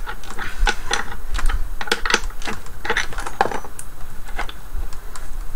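Quick, irregular metallic clicks and clinks of a wrench being worked on a loosening nut inside a subwoofer cabinet, undoing the bolt that holds its toroidal transformer.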